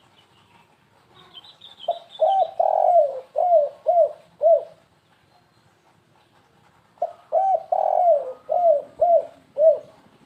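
Spotted dove (tekukur) cooing: two phrases of about six short arched coo notes each, one starting about two seconds in and the next about seven seconds in. This is the stuttering 'kuk 3' song type prized by dove keepers. Faint high chirps from a smaller bird come just before the first phrase.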